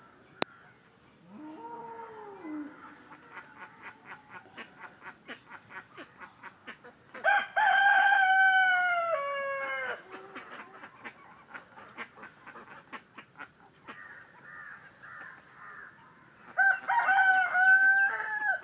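A rooster crows twice, each a long call that falls in pitch toward its end. The first comes about seven seconds in and the second near the end. Before the first crow there is a run of soft, evenly spaced ticks.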